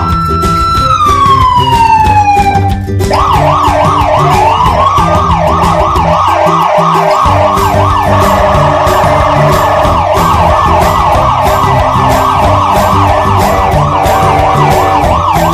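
An electronic siren over background music with a steady beat: a long wail held high and then falling, then about three seconds in a fast yelp that repeats about three times a second.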